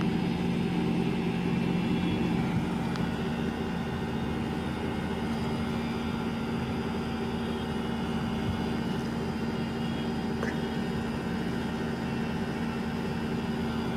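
Air conditioner outdoor unit running steadily with a constant hum after an R32 refrigerant recharge. It holds a back pressure of 150, with the strong cold return of a properly charged, cooling system.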